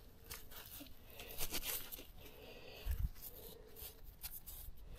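Faint rustling and scraping of a work glove and fingers rubbing caked dirt off a pocket knife's handle, with a soft low bump about three seconds in.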